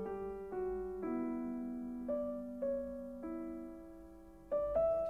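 Slow piano music: single notes and chords struck roughly once a second, each left to ring and fade.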